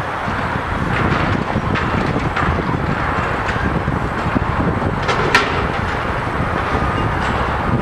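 Distant demolition: a crane's clamshell bucket crunching a reinforced concrete column, heard as a steady rumble of machinery and wind with scattered cracks and clanks. The sharpest crack comes about five seconds in.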